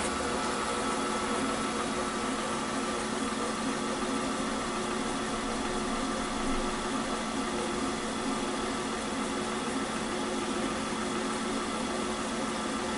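Servo-driven cylinder boring bar running steadily at about 400 rpm with its feed engaged, a steady motor hum over even machine noise, as its cutter takes the first, heaviest roughing pass at the top of a Kawasaki KLR motorcycle cylinder.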